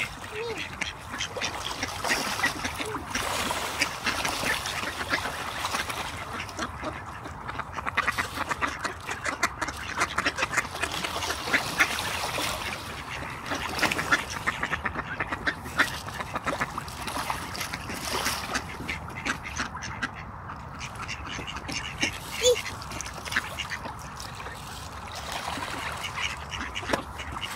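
A flock of mallards quacking, many calls overlapping without pause, with water splashing as ducks rush and chase across the pond.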